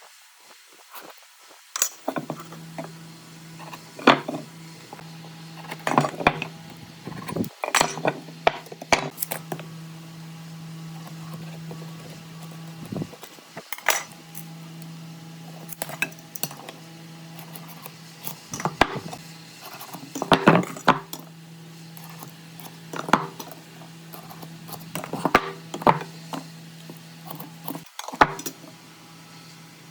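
Repeated sharp clinks and knocks of metal or wood being handled, over a steady low machine hum that starts about two seconds in and drops out briefly a few times.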